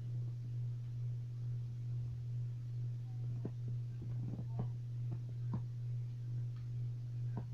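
Steady low electrical hum with a slow throb, with a few faint clicks and taps from about halfway in as small laptop parts and a screwdriver are handled.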